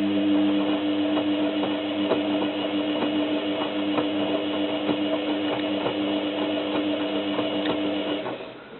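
Zanussi FLA1002W front-loading washing machine turning its drum in the wash phase: a steady motor hum with a whine, and light knocks and sloshing of the wet duvet and water inside the drum. The tumble stops about eight seconds in, as the drum pauses before reversing.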